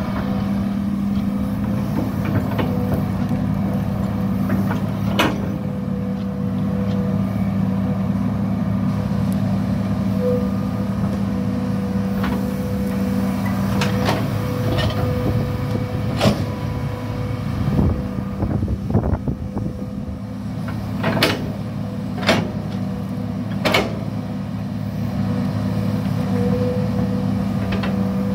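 Hitachi 210 hydraulic excavator's diesel engine running steadily under load while it digs, with a faint steady whine above it. Several sharp knocks from the bucket and arm ring out, most of them in the second half.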